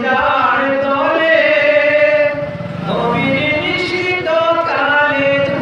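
A man singing a Bengali patriotic song solo into a stage microphone, in long held notes that bend slightly in pitch, with short breaks between phrases.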